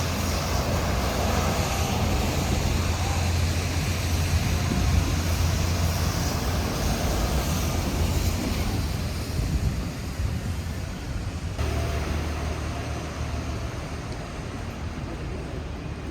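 Diesel train engines idling at a station platform: a steady low engine drone under a wash of station noise.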